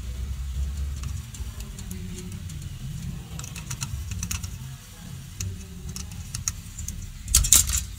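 Small irregular clicks and taps of soldering work on a circuit board, the iron and solder wire touching the pads, over a low steady rumble, with a brief louder clatter near the end.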